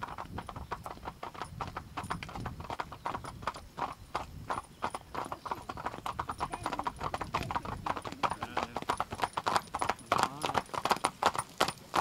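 Hoofbeats of a team of four carriage horses trotting on an asphalt road, a quick, steady clatter of many hoof strikes that grows louder as the team comes closer.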